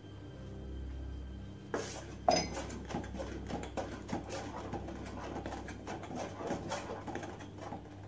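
A metal spoon stirring hot milk in a stainless steel saucepan, clinking and scraping against the pan. There is a sharp clink about two seconds in, then quick repeated scrapes and taps for several seconds.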